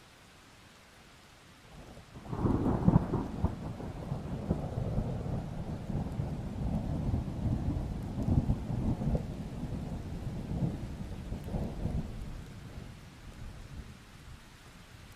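A thunderclap breaks about two seconds in over steady light rain, then rolls on as a deep rumble for about ten seconds before fading away near the end.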